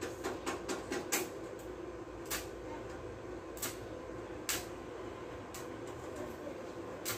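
Stick (coated-electrode) arc welding on the thin sheet-steel floor of a truck cab, done in short tacks: a steady hum broken by sharp crackling snaps as the arc is struck, several in quick succession in the first second and a half, then single ones a second or so apart.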